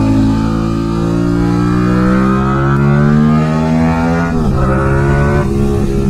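Yamaha MT-07's 689 cc parallel-twin engine running through a full Mivv exhaust system under acceleration. The revs climb steadily for about four seconds, then drop and climb again twice, about four and five and a half seconds in, as the bike shifts up.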